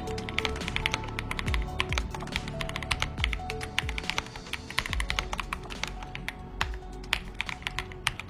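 Rapid typing on an Ajazz AK820 MAX Plus mechanical keyboard with Ajazz Flying Fish tactile switches: many quick, irregular key clicks, with background music underneath.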